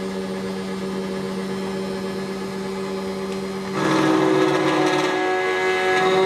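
SEC-E9 key cutting machine running steadily as it cuts a new key blank; nearly four seconds in, the sound grows louder and harsher for about two seconds as the cutter works the blank.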